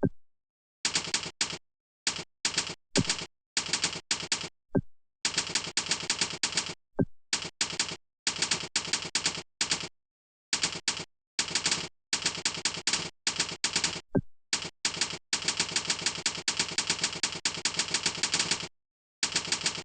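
Rapid keyboard typing: fast runs of keystrokes in bursts of up to a couple of seconds, broken by short pauses.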